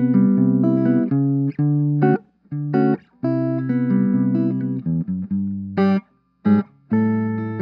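Clean electric guitar through an Orange Crush 20 combo amp, a Squier Classic Vibe Telecaster played on its P90 neck pickup. It plays a run of chords, each ringing about a second with short breaks between, two short stabs near the end, then a longer held chord.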